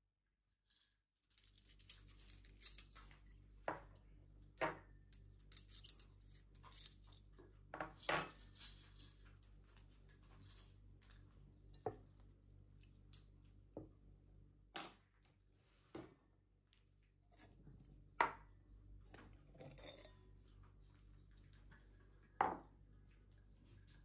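Tableware being set out: scattered clinks and knocks of cups, plates and cutlery set down on a wooden table, over a steady low hum that starts about a second in.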